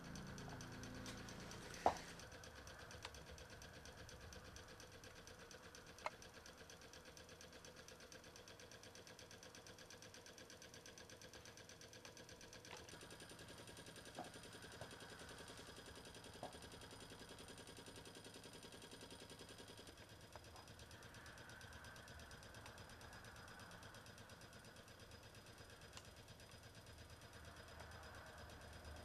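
Small Wiggers Stirling hot-air engine running steadily, its flywheel and linkages making a faint, fast, even mechanical patter. A few sharp clicks stand out, the loudest about two seconds in.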